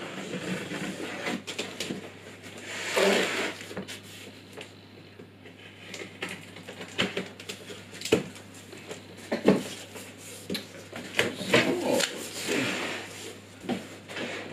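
Large cardboard box being opened by hand: the packing tape slit along the top, then the cardboard flaps rustling, scraping and knocking as they are worked loose and folded back. The noise comes in irregular bursts, with several sharp knocks.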